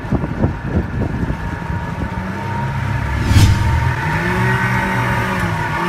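Wind buffeting the microphone over open water, then a boat's motor running, rising a little in pitch and holding steady, with a brief hiss about three and a half seconds in.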